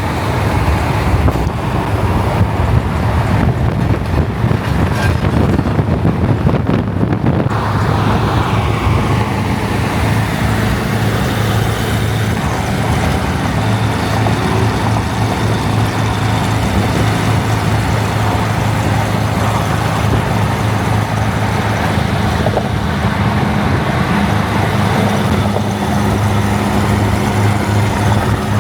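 Car engine running with a steady low hum, mixed with traffic and road noise.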